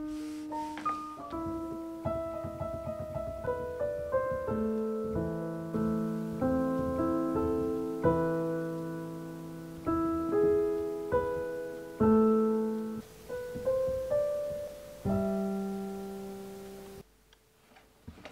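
Digital piano played slowly by a beginner: a simple melody of single notes over held low chords, each note fading out. It cuts off suddenly about a second before the end.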